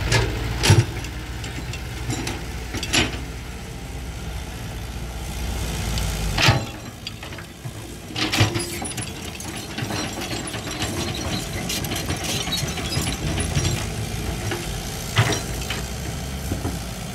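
Diesel engines of an excavator and dump trucks running steadily, with a heavy low rumble that eases about six seconds in. Five or so sharp knocks are scattered through it, the kind of clank made by an excavator bucket and its linkage while digging.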